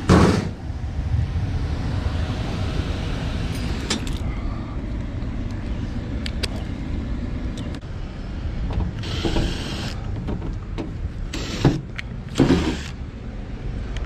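Packaged air-conditioning unit running with a steady low hum, its newly wired blower motor now on. A loud thump right at the start as the insulated access panel is handled, and a few short clatters in the last few seconds.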